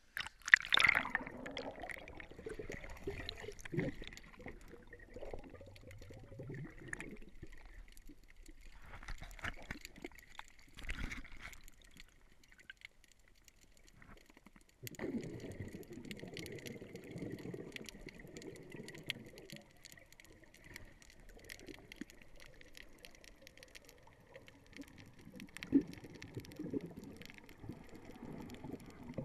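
Underwater sound heard through a diving camera: water moving, gurgling and bubbling, with scattered clicks and knocks and a faint steady high tone. There is a loud splash or knock about a second in and another near the end.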